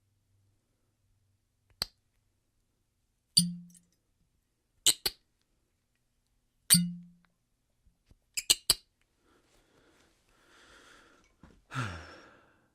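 Metal corkscrew being handled: a series of sharp clicks and clinks, one or two at a time every second or so, two of them with a dull thud beneath. Near the end comes a soft rustle, then a louder scrape with a short creak that falls in pitch.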